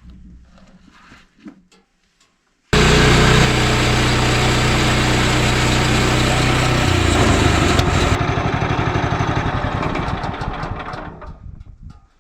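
The sawmill's small petrol engine starts abruptly and runs loud and steady. Partway through its pitch drops, then it dies away near the end.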